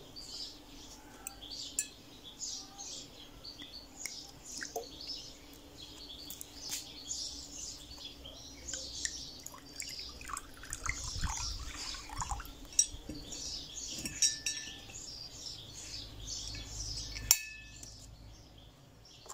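Water poured from a glass swing-top bottle into a glass bowl, splashing for a few seconds about halfway through, with light clinks of glass. A sharp glass knock near the end comes as the bottle is set down on stone. Birds chirp constantly in the background.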